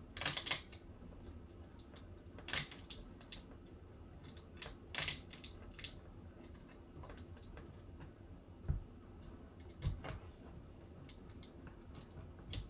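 Fingers picking and scratching at the wrapping on a baseball bat, making short crackling rasps every two to three seconds. Two dull knocks come about two-thirds of the way through.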